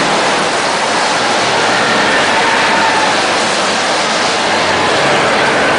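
Roller coaster ride: a loud, steady rush of wind and the coaster train running along its track, without let-up.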